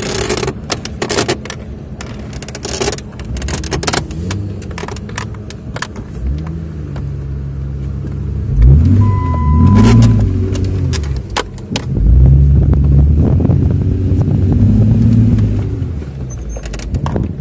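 Jeep Wrangler engine revving up and down while driving through soft sand, surging loudest about nine and twelve seconds in, with rattling and clicking from the vehicle throughout. A brief high beep sounds about nine seconds in.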